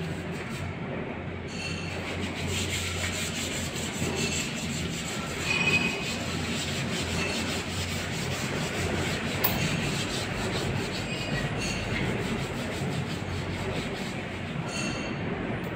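Machinery running steadily with a low hum and a rubbing, grinding noise, with a couple of brief knocks in the middle.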